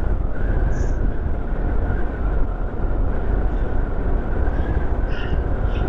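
Motorcycle riding at a steady speed: engine running under a steady rumble of wind on the microphone, with a steady high whine.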